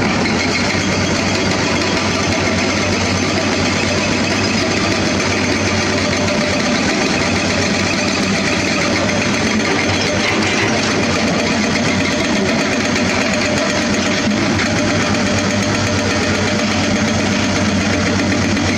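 Diesel engines of a Komatsu PC200 hydraulic excavator and a dump truck running steadily as the excavator loads the truck.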